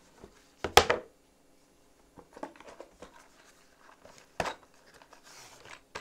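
A loud knock just under a second in and a second sharp knock at about four and a half seconds, with light rustling and clatter in between.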